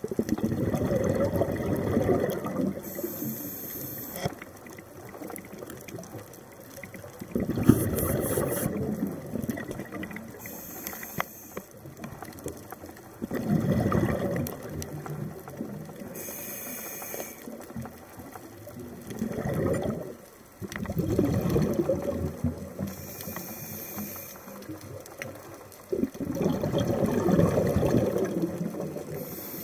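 A scuba diver breathing through a regulator underwater. A short hiss of inhaling alternates with a longer burst of exhaled bubbles, about five breaths roughly six seconds apart.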